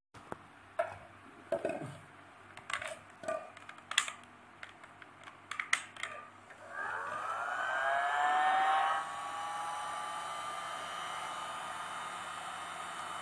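A few handling clicks and knocks, then about seven seconds in a heat gun is switched on. Its motor whine rises as it spins up and settles into a steady whir of blowing air, loudest for a couple of seconds before easing to an even level, as it blows hot air onto an air-filled plastic bottle.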